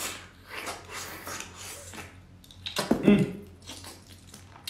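Close-miked wet chewing and smacking of braised canned abalone in the mouth, a string of soft squelchy mouth noises, with a brief vocal sound about three seconds in.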